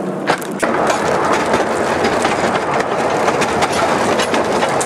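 Narrow-gauge railway carriage running along the track: a steady clatter and rattle of wheels and wooden coachwork with many small clicks, getting louder about half a second in.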